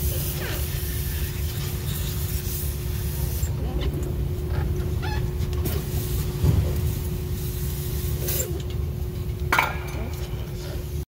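Brake cleaner hissing out of a pressurized can's nozzle in a few long bursts, flushing leftover oil off the diesel's oil filter and pan after the filter change, over a steady low hum.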